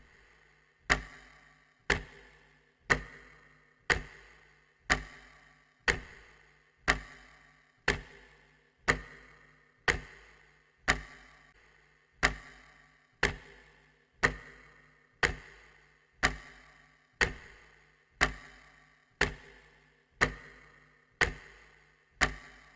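A clock ticking steadily, one sharp tick each second with a short ringing decay, starting about a second in and stopping just before the end.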